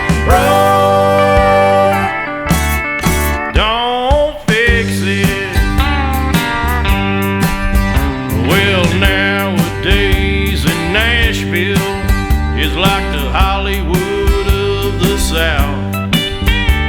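Country music with guitar, bass and a steady drum beat, and a lead line that slides and bends in pitch.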